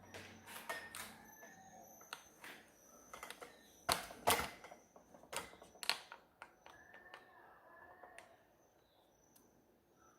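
Plastic clicks and knocks of a 12A toner cartridge being handled and taken out of a laser printer, with two louder knocks about four seconds in, then a few lighter ticks.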